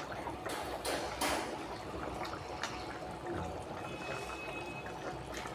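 A steel spoon stirring a thin fish-and-vegetable curry in a metal pot: liquid sloshing, with a few light clinks of the spoon against the pot in the first few seconds.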